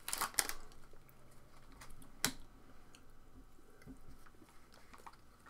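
Foil wrapper of a trading card pack crinkling in the hands as it is pulled open: faint, scattered crackles, with a sharper snap a little over two seconds in.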